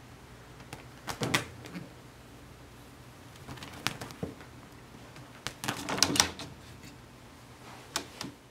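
A Persian kitten's claws catching and scrabbling on a window screen and curtain: four short bursts of clicking and rattling, the loudest about six seconds in.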